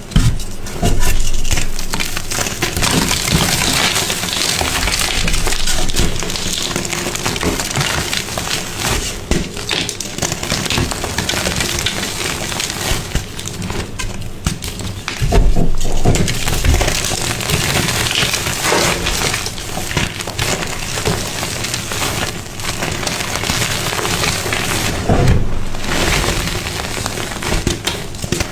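Brittle, crumbly material being crushed, a dense, continuous crunching and crackling, loudest about a second in and again around fifteen seconds in.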